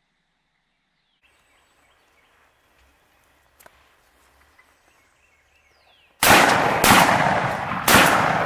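Faint spitting and drumming of strutting wild turkey gobblers, a soft low hum with small pops. Then three shotgun blasts in quick succession, the second just over half a second after the first and the third a second later, each echoing and dying away slowly.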